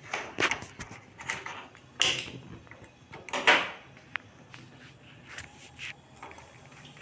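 Gas stove burner being lit: a few clicks, then a sharp burst of noise about two seconds in as the flame catches. A louder burst of noise comes a second and a half later.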